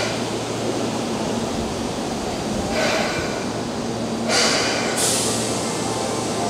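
Keihan 6000-series electric train pulling slowly into the platform and coming to a stop, with a steady low hum. Bursts of hiss come about three seconds in and again from about four seconds on.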